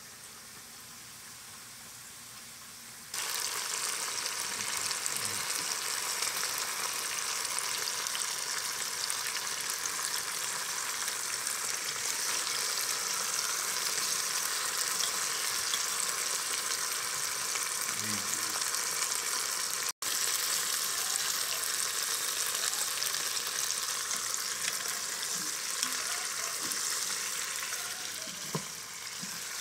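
Seared oxtails sizzling steadily in hot fat, the sizzle jumping louder about three seconds in, with a few light knocks as tongs move the pieces.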